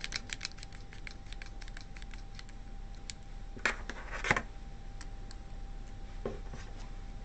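Small clicks, taps and scrapes of a cylindrical lithium-ion cell and crocodile clips being handled and fitted into a battery holder, with a burst of quick ticks at first and two louder scrapes about three and a half and four seconds in.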